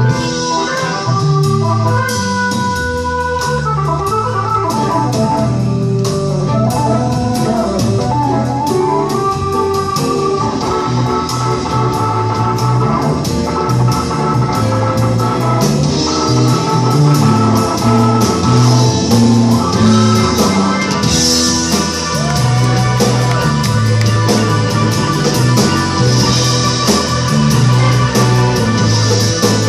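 Live rock band playing an instrumental passage, an organ holding sustained chords over bass and drums.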